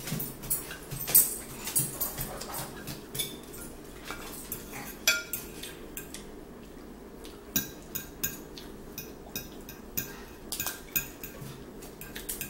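Metal forks clinking and scraping against plates while people eat. The clinks are irregular and sharp, often one or two a second, over a faint steady low hum.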